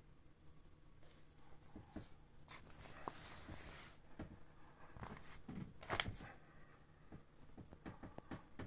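Plastic skin of a deflating inflatable toy boat rustling and crinkling as it is handled and pressed flat, in scattered crackles with a longer soft rustle a few seconds in and the loudest crackle about six seconds in.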